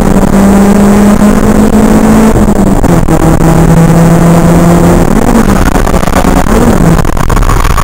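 Stock Toyota AE86's 4A-GE twin-cam four-cylinder engine running hard, heard from inside the cabin on a distorted, clipping recording. The engine note holds steady, dips slightly about two seconds in, then wavers up and down around five to six seconds in as the car is turned in for a drift.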